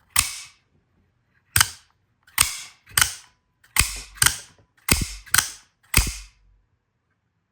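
Cobratec out-the-front automatic knife's freshly oiled mechanism firing the blade out and snapping it back, about nine sharp snaps, several in quick pairs.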